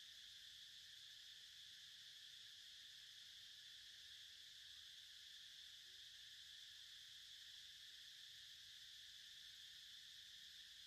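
Near silence with a faint, steady high-pitched insect drone from crickets or cicadas, unbroken throughout.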